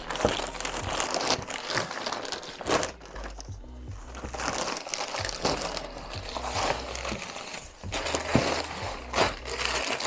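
A parcel being opened by hand: packaging crinkling and rustling in irregular bursts, with short crackles.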